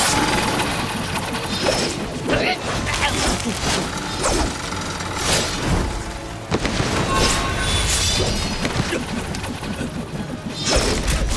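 Action-film sword-fight sound effects: repeated sharp impacts and swishes with mechanical clanking, over background score music.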